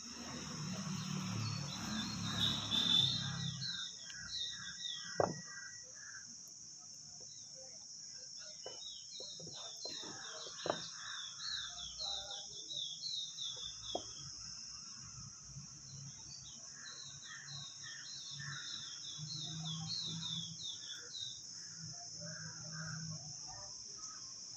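Birds chirping in repeated runs of short falling notes over a steady, high-pitched insect drone. There are a few sharp clicks, and a low rumble in the first few seconds.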